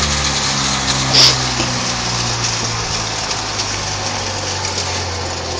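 TYFS40 wood sawdust machine running with a steady loud rushing noise over a low hum. A single short, sharp clink comes about a second in.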